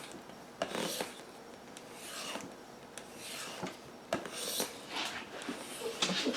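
Knife blade stropped on a paddle strop made of a guitar strap on wood: about six soft swiping strokes, roughly one a second. This is the edge-refining stage after whetstone sharpening.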